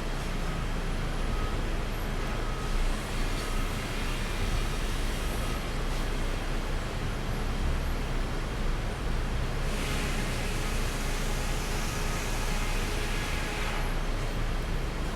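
Sawmill machinery running steadily with a deep rumble, with a louder, harsher hissing stretch from about ten to fourteen seconds in.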